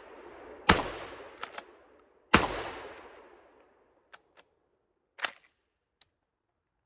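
Tokarev TX3 Hammer 12-gauge pump-action shotgun firing birdshot: two shots about a second and a half apart, each trailing off in a long echo, with the pump action clacking between them. After that comes a handful of short metallic clicks from the action.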